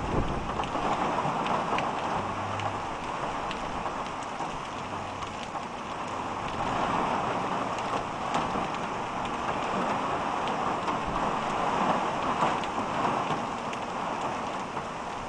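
Heavy rain pouring onto a wet street: a dense, steady hiss that swells and eases, with scattered drops tapping close by.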